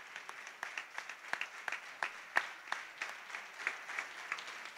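Light applause: scattered individual hand claps, thinning out near the end.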